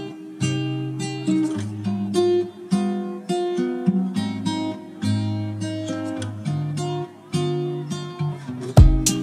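Background music: an acoustic guitar playing plucked and strummed notes, with deeper percussive beats coming in near the end.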